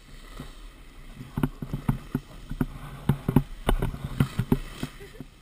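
Snowboard sliding over packed snow: the board scraping and chattering, with irregular knocks and clatter over a steady low rumble.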